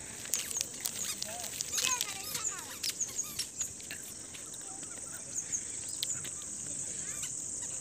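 Steady high-pitched insect drone in scrubland, with many short chirps and whistles from small birds, most of them in the first four seconds.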